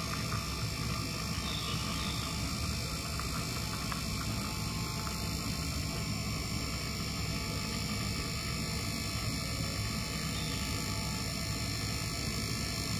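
Handheld battery-powered milk frother whirring steadily in a pitcher of milk, foaming it for a latte.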